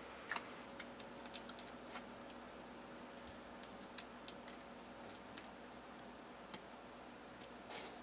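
Light clicks and taps of small pieces of thin plastic sheet being handled, squared against a steel ruler and stacked on a cutting mat, the loudest about a third of a second in, with a brief rustle near the end over a faint steady hiss.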